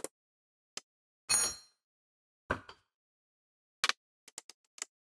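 A handful of separate metallic clanks and clicks from hand tools working on the hub end of a BMW E90 rear drive shaft. The loudest comes about a second and a half in and rings briefly. A quick run of small clicks follows near the end.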